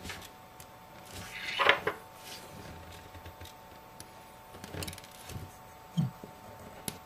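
Light clicks, taps and scrapes from handling small iPhone parts and tools on a work surface, over a faint steady hum. The loudest is a short scraping rustle about a second and a half in, and there is a dull knock about six seconds in.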